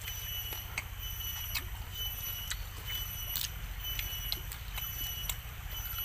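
Chewing grilled sparrow satay: short crisp crunches about twice a second, over a steady high-pitched whine.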